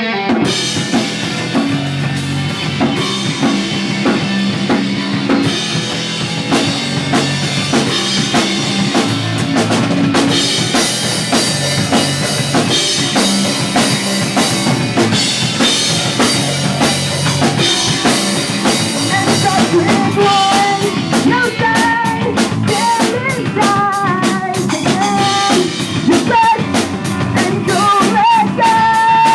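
Pop punk band playing live, loud, with a full drum kit driving the beat under the band; a sung vocal line comes in about two-thirds of the way through.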